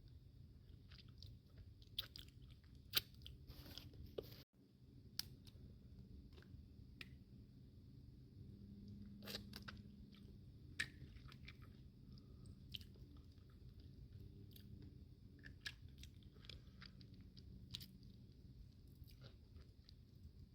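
Close-up chewing and eating of crawfish, with scattered sharp crunches and clicks of the shells.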